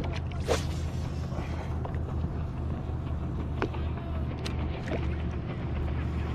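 A fishing rod cast swishing through the air about half a second in, followed by a few faint ticks during the retrieve, over a steady low hum.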